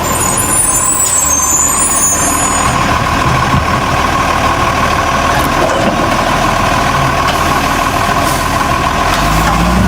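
Garbage truck running steadily, engine noise with a constant high tone over it.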